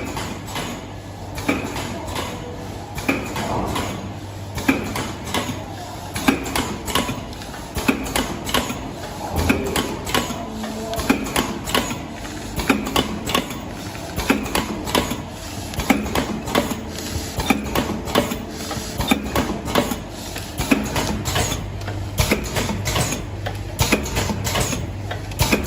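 Four-side-seal automatic liquid sachet packaging machine running: a continual stream of clicks and clacks from its filling, sealing and cutting mechanism over a steady low hum.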